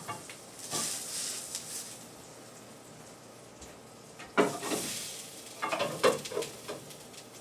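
Eggs frying in a pan inside bell pepper rings, with a faint steady sizzle that swells briefly about a second in and again about four and a half seconds in. Two short louder sounds stand out, about four and a half and six seconds in.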